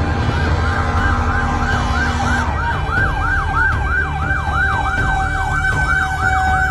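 An emergency vehicle siren on a fast yelp, its pitch sweeping up and down about three times a second, over a low vehicle rumble.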